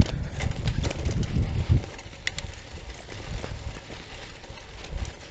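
Bicycle rattling and bumping over a rough dirt road, irregular knocks over a low rumble; the bumping eases off after about two seconds.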